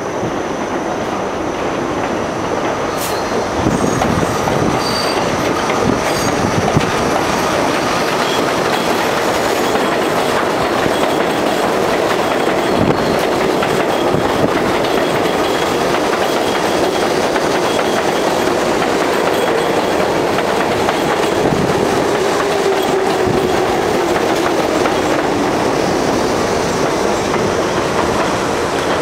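New York City subway 7 trains of R62A cars running on the elevated Flushing line: a steady rumble with wheels knocking over the rail joints and thin, high squeals from the wheels on the curved track. Near the end a humming tone slides slowly down in pitch.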